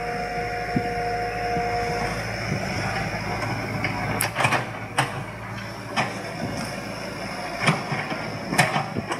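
Backhoe excavator's diesel engine running steadily, with a steady tone that stops about two seconds in. From about four seconds in come several sharp metallic clanks, roughly one a second.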